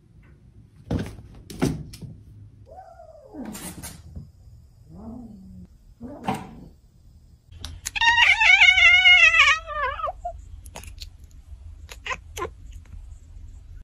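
A few soft knocks and thumps, then a cat's long, loud meow about eight seconds in, wavering and falling in pitch at its end.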